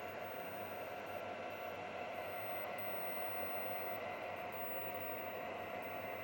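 Steady hiss of background noise with faint high steady tones; no distinct events.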